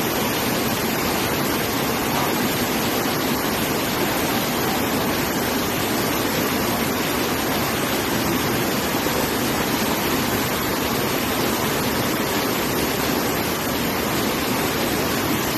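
Waterfall rushing: a steady, even noise of falling water that holds unchanged throughout.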